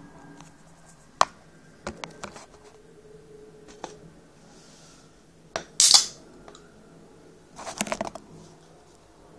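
Aluminium energy drink can being handled with a few sharp metallic clicks and knocks, then its ring-pull cracking open with a short fizzy hiss about six seconds in, followed by another brief run of clicks.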